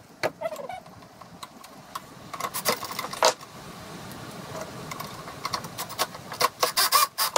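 Cordless drill running in short bursts while fastening parts of a tow-behind broadcast spreader, among sharp clicks and clinks of metal parts and tools being handled; the clicking is busiest near the end.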